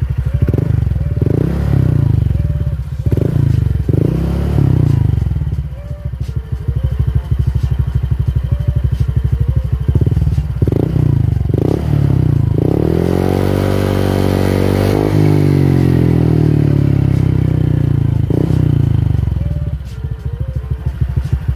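Honda Vario 125 scooter's single-cylinder engine revved through an SKR aftermarket racing exhaust with a 28 mm header. First comes a string of short throttle blips. About halfway through, a long rev climbs steadily in pitch, is held high, and falls back toward idle near the end, stopping short of the rev limiter. The exhaust note is very throaty ("gerung parah") on an engine still at factory spec.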